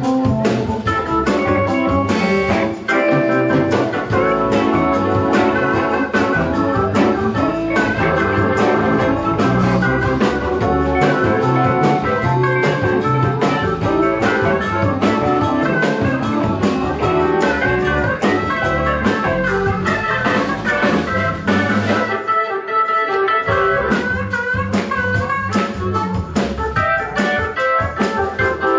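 Live blues band playing: keyboard, electric guitars, bass and drums. About 22 seconds in the band drops out for about a second, then comes back in.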